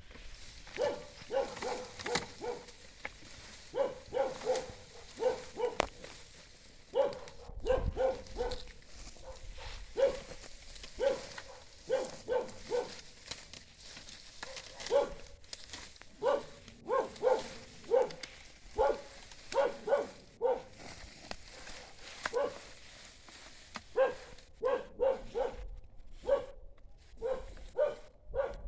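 A dog barking repeatedly in short barks, often in quick runs of two to four, with brief pauses between runs.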